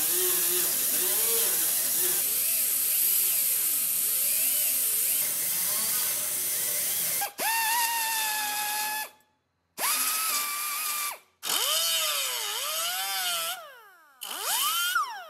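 Pneumatic die grinder with a small sanding disc grinding down weld beads on sheet steel. It makes a steady harsh grind at first, then gives several short runs of a high whine whose pitch dips and climbs as the disc bears on the metal and lets off, with brief gaps of silence between them.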